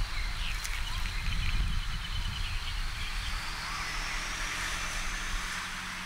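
Outdoor background: a steady low rumble with faint, high, short chirps of small birds in the first couple of seconds, and a thin steady high tone that drifts slightly upward.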